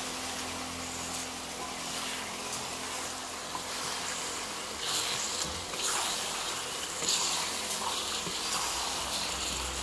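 Wooden spatula stirring chicken pieces coated in spice paste around a large wok. Stirring and scraping strokes come over a steady hiss, a few of them louder from about five seconds in.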